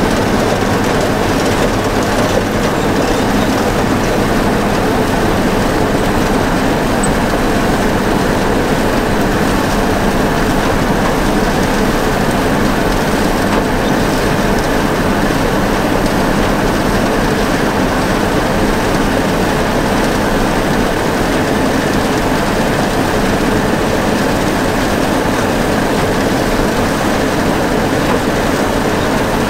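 International 856 tractor and New Holland 36 pull-type forage chopper running together as they chop green grass: a loud, steady machine drone of engine, drive and chopper that never lets up.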